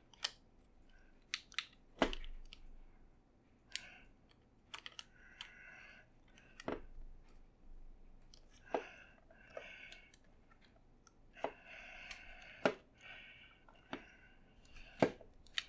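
Irregular sharp clicks and knocks of the iRiver iHP-120 MP3 player's metal end cap and casing being pressed and forced together by hand, with short bouts of scraping between them. The casing is a tight fit over a new battery that is thicker than the original.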